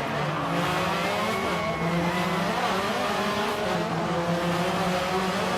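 Subaru rally car's turbocharged flat-four engine revving, its pitch rising and dipping over and over.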